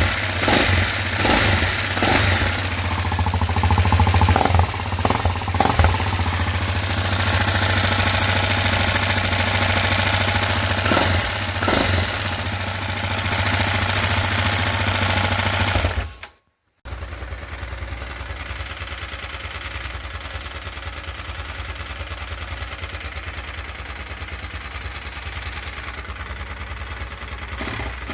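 A rebuilt 166FMM single-cylinder motorcycle engine, with a new crankshaft and cylinder-piston group, running steadily with a slight rustle from the piston group and no knock. The sound drops out abruptly about two-thirds of the way through, then resumes quieter with a fine, even ticking.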